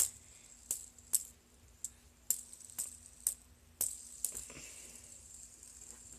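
Fidget spinner bouncing on fingertips while it spins, giving sharp light clicks about twice a second, then stopping about four and a half seconds in.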